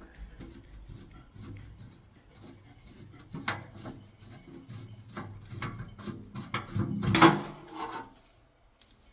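Handling noises on a metal lathe: scattered clicks and knocks over rubbing and scraping, with the loudest clatter about seven seconds in, then stillness.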